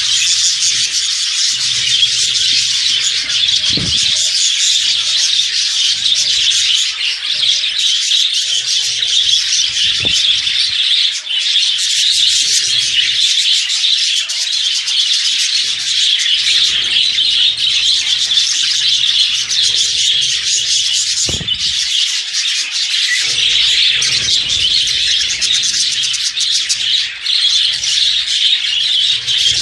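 A flock of budgerigars and other small birds chattering nonstop, a dense high twittering with no breaks.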